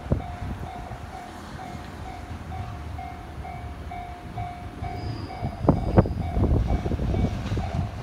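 Japanese railway level-crossing warning bell ringing steadily, about two and a half dings a second. From about five and a half seconds in, an E217-series electric train approaching from the station adds its running rumble and a few sharp clacks of wheels on the rails.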